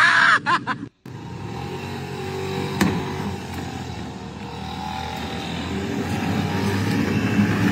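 Street noise with a motor vehicle approaching, growing gradually louder, and a single sharp click about three seconds in.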